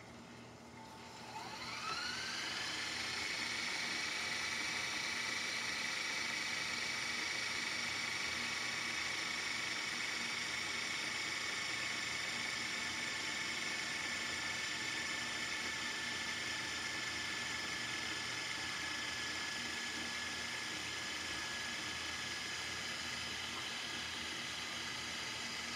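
Sony DVD/VCR combo's VHS deck rewinding a tape at high speed: about a second in, the reel motor spins up with a rising whine, then settles into a steady high whir.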